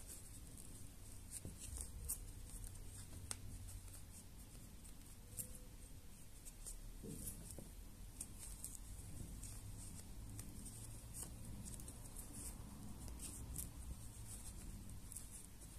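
Faint scratching and small irregular clicks of a crochet hook pulling cotton yarn through the edge of a felt shoe sole as stitches are worked, over a low steady hum.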